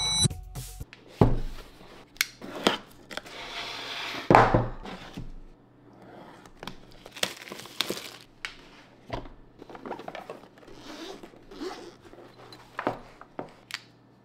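Clear plastic wrapping crinkling and being torn by hand, with scattered sharp clicks and knocks from handling. A longer stretch of tearing comes about four seconds in.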